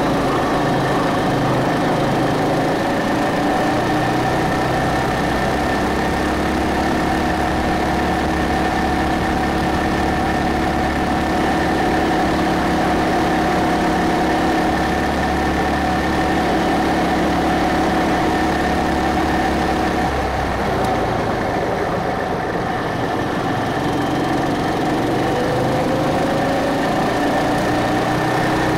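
Go-kart engine running at speed, heard from on board the kart. The engine note holds fairly steady, falls off about twenty seconds in, then rises again near the end.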